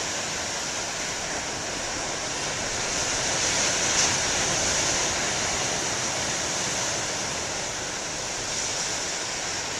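Ocean surf washing onto a beach: a steady rushing that swells about halfway through, as a wave breaks, then eases.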